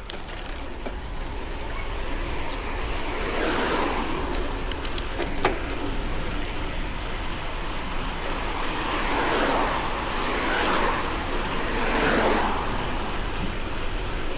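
Cars passing on the road in several swells that rise and fade, over a steady rush of wind and tyre noise from riding, with a few sharp clicks about five seconds in.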